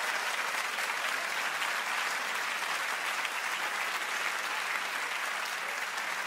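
A large studio audience applauding, a steady, sustained round of clapping in response to a joke's punchline.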